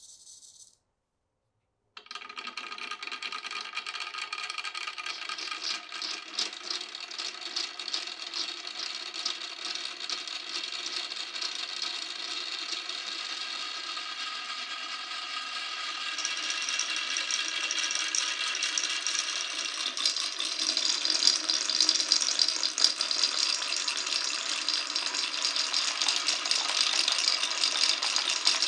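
Many marbles rolling and rattling down a marble run track together, in a dense continuous clatter that starts about two seconds in and grows louder twice as more balls join in.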